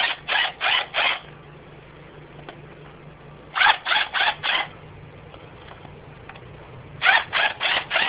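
1/4-inch impact driver hammering in short trigger bursts, about four at a time in three groups, as it backs off the rocker-arm shaft bolts on a 2.0 SOHC cylinder head.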